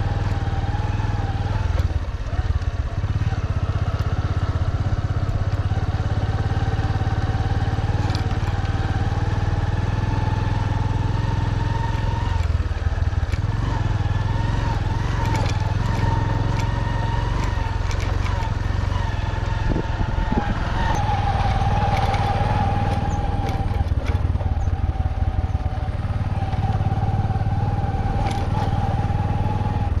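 Motorcycle engine running steadily while being ridden, a continuous low rumble with a slightly wavering whine above it.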